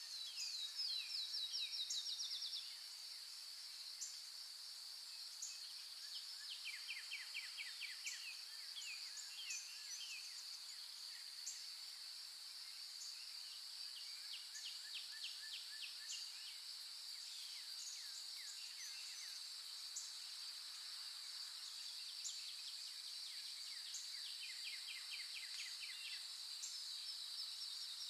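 Steady high-pitched insect drone with birds singing over it in repeated rapid trills of short falling notes. The trills are loudest in the first two seconds.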